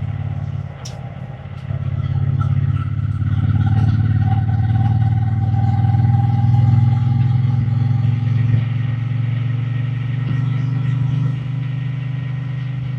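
Triumph Bonneville T120 parallel-twin engine and exhaust running under way. It dips briefly about a second in, then opens up and holds a steady, loud drone before easing off a little near the end.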